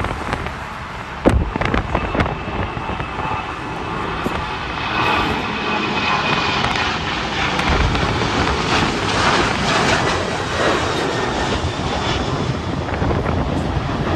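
Jet airliner engines passing, the noise swelling from about four seconds in with a faint high whine, while gusts of wind buffet the microphone.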